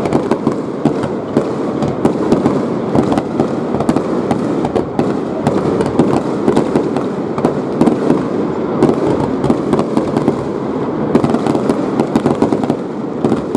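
A rapid-fire barrage of aerial fireworks: dense, continuous bangs and crackling with no pauses.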